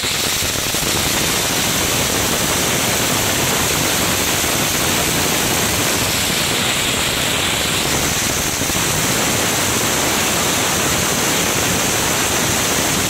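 A cocktail crackling fountain firework burning, a steady loud hiss of spraying sparks.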